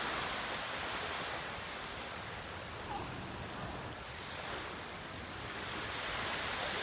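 Ocean waves breaking and washing on the shore: a steady rush of surf that eases through the middle and swells again near the end.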